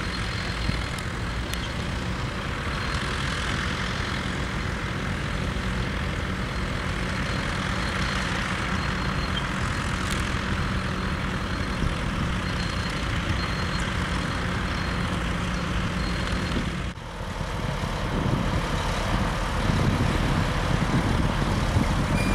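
Vintage crawler tractor's engine running steadily under load as it pulls an implement across a field. About two-thirds of the way in it cuts to a louder, rougher engine of a large four-wheel-drive tractor with a reversible plough.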